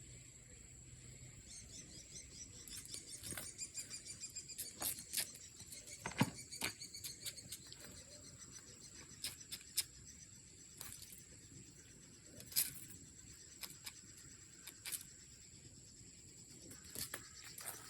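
Steady high insect chorus, with scattered sharp clicks and taps on top; the loudest tap comes about six seconds in.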